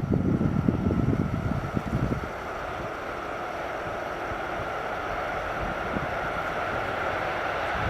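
Wind buffeting the microphone for about two seconds, then a steady rushing noise that slowly grows louder: an approaching freight train hauled by a Siemens ES64F4 electric locomotive.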